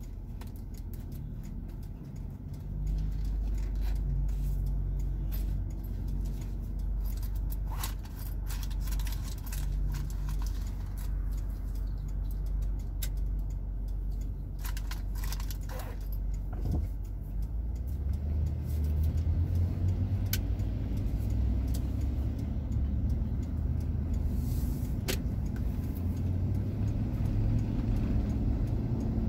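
Car running, heard from inside the cabin: a low steady rumble while it waits at a light, growing louder a little past halfway as it pulls away and drives on. Scattered light clicks and rattles come through over it.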